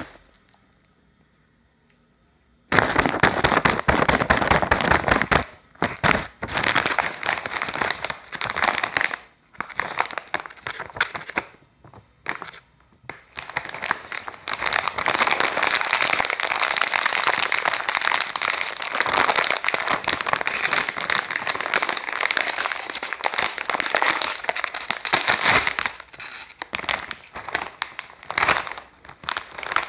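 Plastic snack bag of Cheetos crinkling loudly as gloved hands handle it and open it, starting about three seconds in and going on in long stretches with short pauses.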